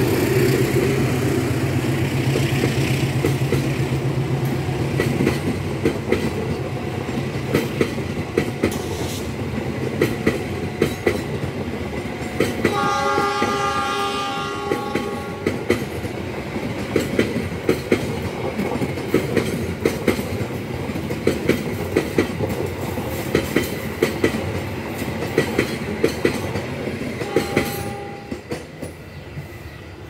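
Passenger train carriages rolling past, the wheels clicking steadily over the rail joints, after a low diesel rumble that fades in the first few seconds. A train horn sounds once in the middle for about two and a half seconds, with a short tone near the end. The clicking dies away as the last carriage goes by.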